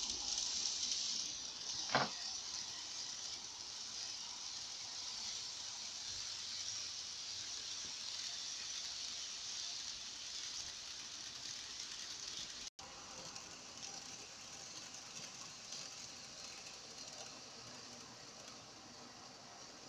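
N-scale model trains running on ballasted track: a faint, steady hiss of small motors and rolling wheels, with a single click about two seconds in.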